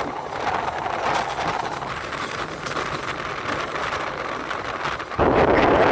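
Running noise of a moving passenger train heard from inside the carriage: a steady rush of wheels on rail with no distinct tones. About five seconds in, it suddenly gets louder and deeper.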